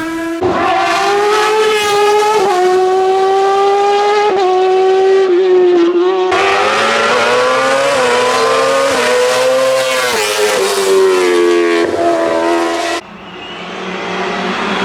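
Hillclimb race car engines run hard at high revs, the pitch stepping sharply every couple of seconds as the cars change gear. The sound switches abruptly to another car about six seconds in and again near the end.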